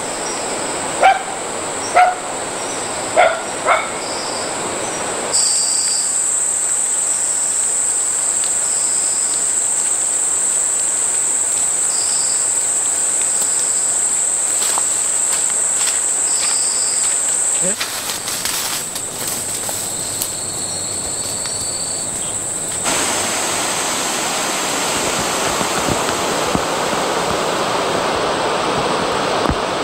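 A dog barks four times in quick succession, then outdoor tropical ambience takes over: a steady high-pitched insect drone with short repeated chirps over a background hiss.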